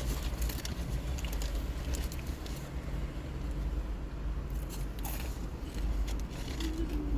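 Close-up chewing and biting into food, with irregular crunchy clicks over a steady low rumble.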